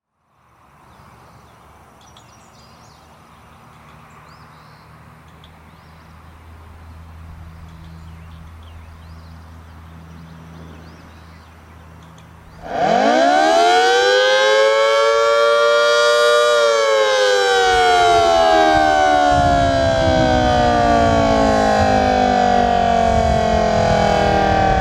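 A Federal Signal Model 2T outdoor warning siren runs a short-blast test cycle. After about twelve seconds of quiet background, it starts suddenly and winds up in pitch for about four seconds, then winds slowly down as the rotor coasts. A low rumbling noise comes in underneath about halfway through the wind-down.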